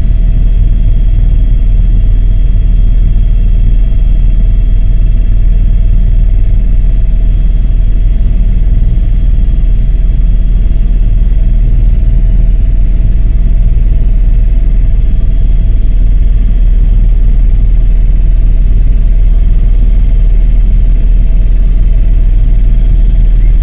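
Helicopter in flight heard from inside the cabin: a loud, steady low rumble of rotor and engine with a faint constant high whine over it.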